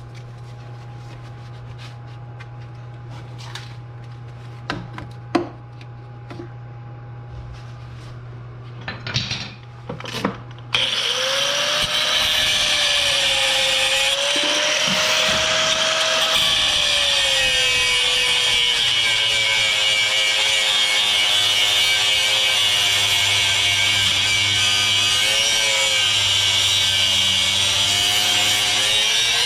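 A handheld power tool starts about a third of the way in and runs continuously, cutting through a rust-seized front sway bar link; its whine dips and recovers as it bites into the metal. Before it starts there are a few light knocks and clatters.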